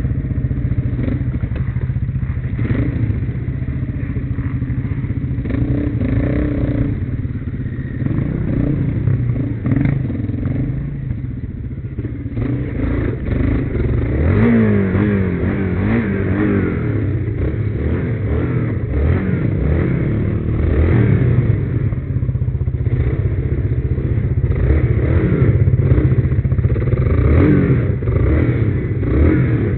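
Quad bike (ATV) engine running under load off-road, the revs rising and falling repeatedly from about halfway through, with clatter from the machine bouncing over rough ground.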